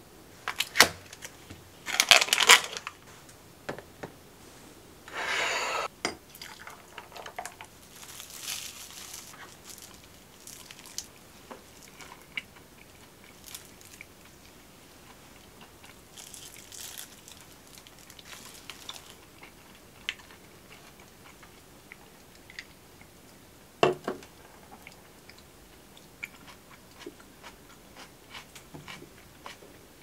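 Plastic and paper food packaging crinkling and tearing, loudest in the first few seconds, then scattered crinkles of a sandwich's paper wrapping, crunchy bites and chewing. A single sharp knock on the table about 24 seconds in.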